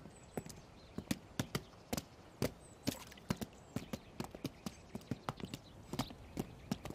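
Horse hooves clip-clopping on pavement: a quick, uneven run of sharp clicks, several a second.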